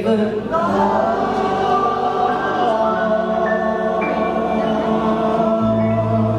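Live acoustic band of keyboard, acoustic guitar and double bass with a woman singing a long held note, other voices joining in.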